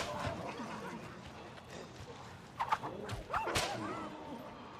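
Film soundtrack: low background noise, a few short calls rising and falling in pitch, and a single sharp crack about three and a half seconds in.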